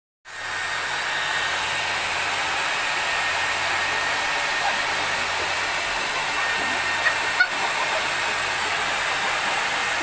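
Hand-held hair dryer blowing steadily, a constant rush of air with a thin high whine from its motor. A brief click or two about seven seconds in.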